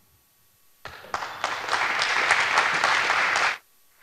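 Audience applauding after a talk, starting about a second in and quickly building to a full round of clapping, which breaks off suddenly near the end.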